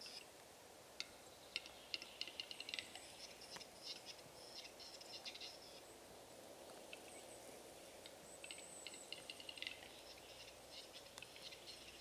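Capercaillie lek: faint, repeated bursts of the cocks' dry clicking and scraping display song.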